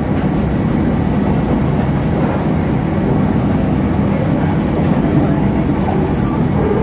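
Steady low rumble of a moving passenger train, heard from inside an economy-class coach, with a brief hiss about six seconds in.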